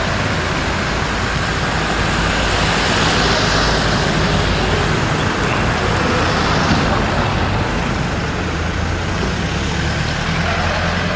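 Steady road traffic noise, a continuous rush of passing vehicles.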